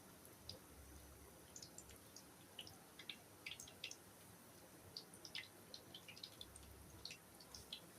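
Faint, irregular small crackles and pops, several a second, over a quiet hiss.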